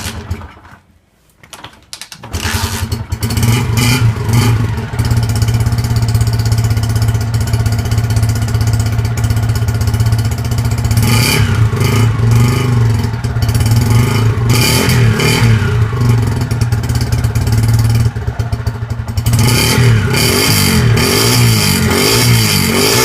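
Fiat Strada engine starting about two seconds in, then running loud and steady through a newly fitted Roncar Turbo aftermarket exhaust in the CBX style, with a couple of short revs partway through.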